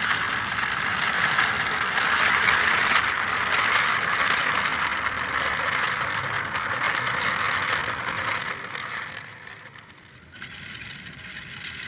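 Wooden model train's locomotive and hopper wagons rolling past over rough concrete, a steady rattle of wheels that fades away about nine seconds in as the last wagons go by.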